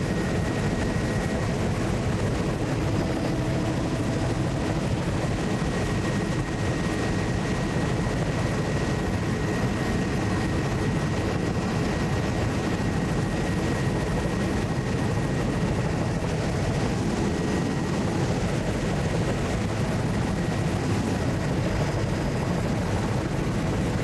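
Steady drone of a low-flying survey aircraft's engine heard from inside the cabin, with a faint steady high whine running through it.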